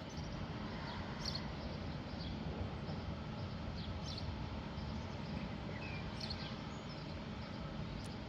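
Outdoor ambience: small birds chirping now and then over a steady low background rumble.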